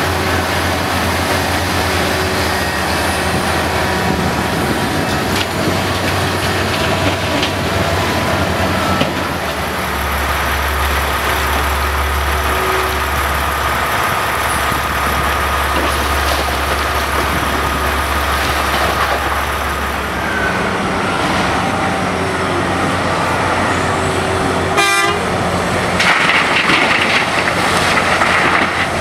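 Big diesel engines of a Komatsu PC1250 excavator and a Caterpillar 777F haul truck running hard as the excavator loads rock. Near the end, rock and dirt pour from the bucket into the truck's steel bed with a rushing, rattling sound.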